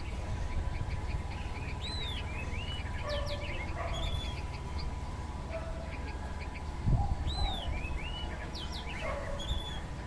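Bulbul singing: two short phrases of quick, arching chirps, one starting about two seconds in and another about seven and a half seconds in. A faint steady hum and low rumble run underneath.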